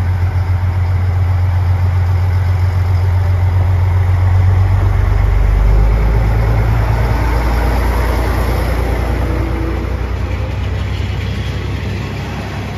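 JR Shikoku diesel railcar engines running with a low, steady drone as a railcar moves slowly past close by. It is loudest about halfway through, then eases off.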